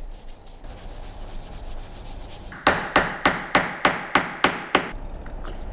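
Hand sanding a small hardwood block: faint light rubbing, then a run of eight quick, even back-and-forth strokes, about four a second, beginning about two and a half seconds in.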